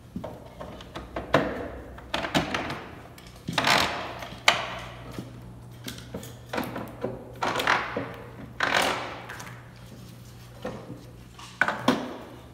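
Irregular wooden knocks, bumps and scrapes as plywood model-railroad module parts and hand tools are handled, about a dozen separate sounds, over a steady low hum.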